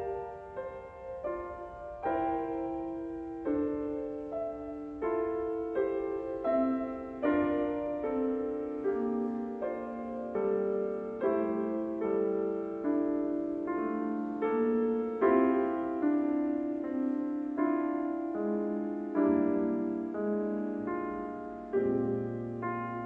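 Yamaha grand piano played solo: a slow passage of notes and chords struck about once a second and left to ring, with a low bass note entering near the end.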